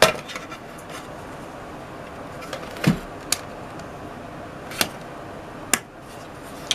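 Hard plastic model-building pieces handled and fitted together: about half a dozen separate sharp clicks and taps, one with a duller knock about three seconds in, over a faint steady hiss.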